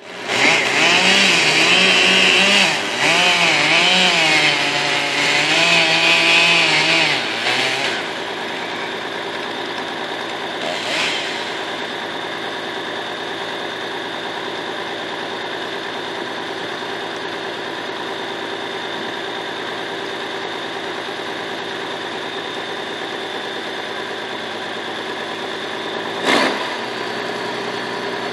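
A chainsaw running at high revs, its pitch wavering up and down for about the first eight seconds, then a steady engine running at idle, with a single knock near the end.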